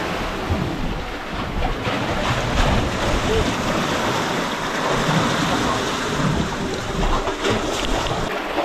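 Wind buffeting the microphone over choppy sea: a steady loud rushing with low, gusty rumbling.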